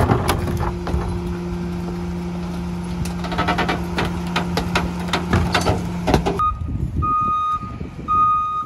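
Split-body rear-loader garbage truck running its hydraulics with a steady hum while a plastic recycling cart is tipped into the hopper, with clanks and rattles of the cart and falling recyclables. About six seconds in this stops abruptly and the truck's backup alarm beeps at a steady pace, roughly once a second.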